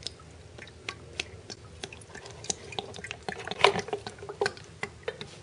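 Motor oil pouring from a quart bottle into a plastic funnel, with irregular glugging pops and drips, the loudest about three and a half seconds in.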